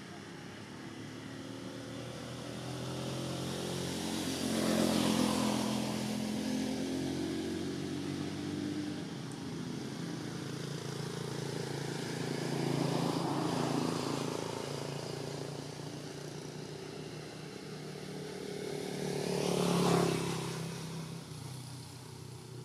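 Road vehicles passing by one after another: an engine hum swells and fades three times, the last pass the loudest, near the end.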